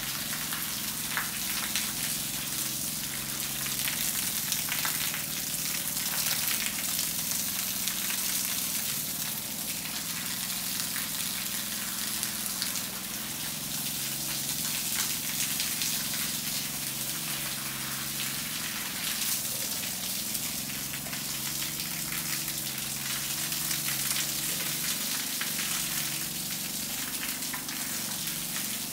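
Streams of water pouring from above and splashing steadily onto a wet concrete floor, a continuous hiss.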